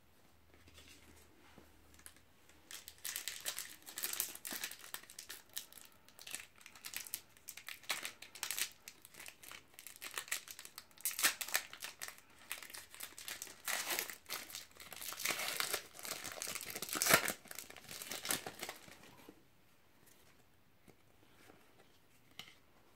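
Foil-lined trading-card booster pack wrapper torn open and crinkled by hand: a run of crackling that stops a few seconds before the end.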